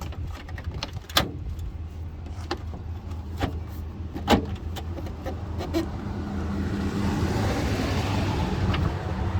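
Plastic headlight assembly being handled and fitted into the van's front end: scattered clicks and knocks, two of them sharper, about a second and about four seconds in. A steady low hum runs underneath, and a rushing noise swells from about two-thirds of the way in.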